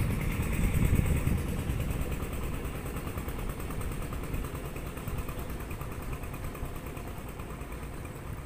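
An engine running steadily, with a low rumble that is strongest about a second in and then eases off.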